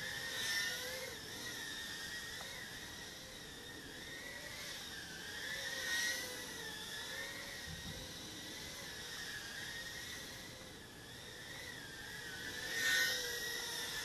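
Whine of a tiny whoop quadcopter's (Eachine UR65) motors and propellers in flight, recorded by the drone's own onboard camera microphone. The pitch wavers up and down with the throttle, with louder surges about half a second in, around six seconds in and near the end.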